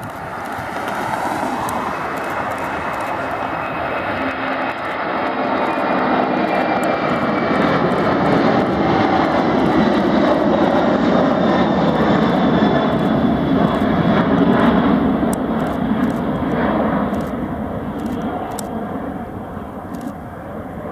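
Boeing 747-400F freighter's four jet engines at takeoff thrust during liftoff and climb-out. The loud engine noise grows to a peak about halfway through as the aircraft passes close, then fades as it climbs away.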